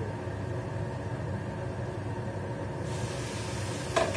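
Steady hum of a kitchen range hood fan running over the stove. Near the end a glass pan lid is set down on a pan with a sharp clank.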